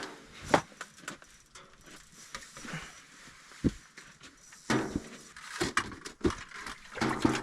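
Scattered knocks and clicks of handling and gear being moved inside a small ice-fishing shelter, irregular, with a cluster of louder knocks in the second half.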